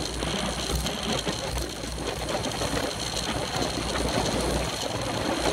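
Road racing bicycles rolling at speed in a pack: the fast buzzing whir of chains, freewheels and tyres, with wind rumbling on the bike-mounted camera's microphone.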